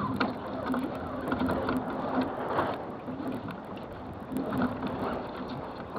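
Water rushing and slapping along the hull of a small sailboat under way, in uneven surges, with small ticks and splashes, picked up by a camera on the deck.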